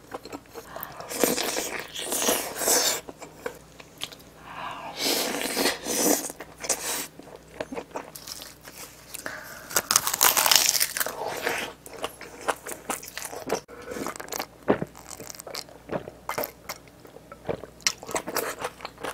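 Close-miked eating: crunchy bites and chewing in irregular bursts with short sharp crackles between them.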